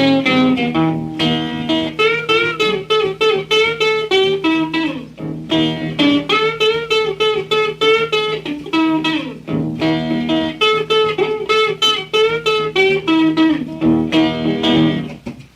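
Solo blues guitar playing a boogie instrumental break on a 1949 78 rpm record: quick plucked treble notes with string bends over a steady droning bass note.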